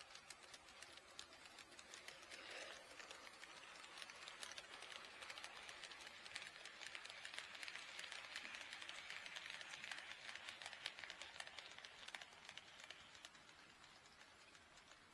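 HO-scale model train running on sectional track: quiet, rapid clicking of the wheels over the rail joints, with a whirring that grows as the train comes close, peaks in the middle, and fades away near the end.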